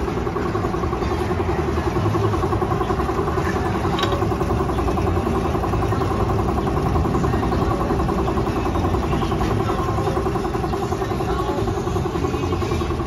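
Piston air compressor for spray painting, running steadily with a fast, even pulse.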